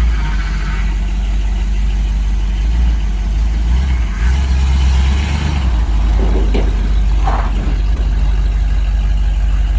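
1976 Dodge D200 pickup's V8 engine running with a steady low rumble that swells for a couple of seconds in the middle, with a brief high chirp about seven seconds in.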